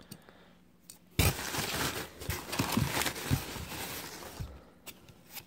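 Crumpled paper packing in a foam-lined cardboard shipping box rustling and crinkling as a hand digs through it. It starts suddenly about a second in and lasts about three seconds, with a few light taps near the end.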